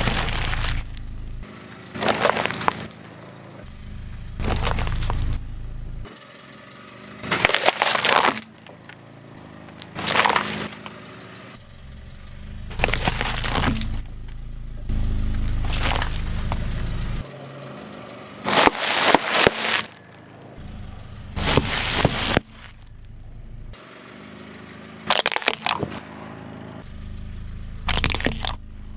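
Car tire rolling over and crushing one object after another: paper and plastic food packaging crackling, crunching and splitting under the weight. There are about ten separate crushes a couple of seconds apart, with the low rumble of the slowly moving car between them.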